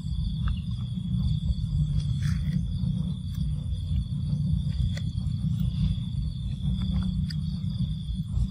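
Continuous low rumble with a steady high-pitched insect drone over it, and a few faint clicks.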